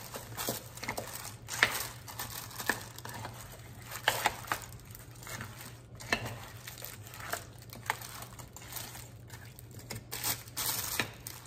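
A plastic slow-cooker liner crinkling and a metal spoon clicking against frozen chicken and frozen vegetables as they are stirred in a crockpot, in irregular crinkles and clicks.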